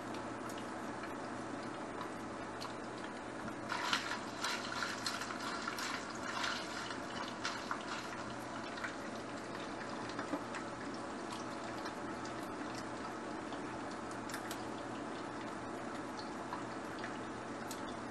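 A pot of spaghetti boiling on an induction hob, bubbling and ticking over a steady low hum. From about four seconds in, a few seconds of splashing and clinking as the pasta in the pot is stirred.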